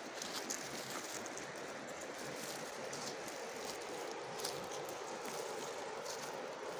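River water running over stones in shallow riffles: a steady rushing that neither rises nor falls.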